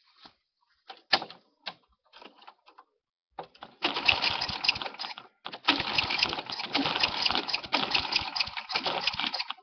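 A couple of sharp clicks, then a Toro rear-bagger lawn mower's small gas engine runs loudly for about six seconds, with a brief dropout a little past halfway, and stops abruptly.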